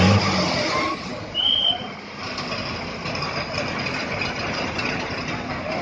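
Bus engine idling, with scattered voices of people around it and a short loud burst of noise right at the start.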